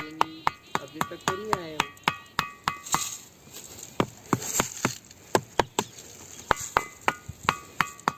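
A ringing rock being struck over and over, about three to four strikes a second, each blow giving a sharp metallic ring like struck iron rather than the dull knock of ordinary stone. For a stretch in the middle the strikes ring less.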